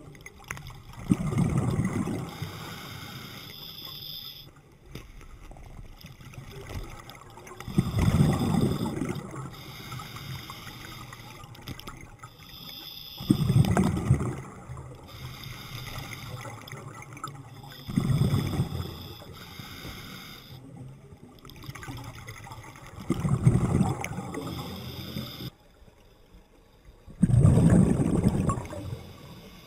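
Scuba diver's breathing heard underwater: a bubbling rush of exhaled air about every five seconds, six times, with quieter hissing from the regulator between breaths.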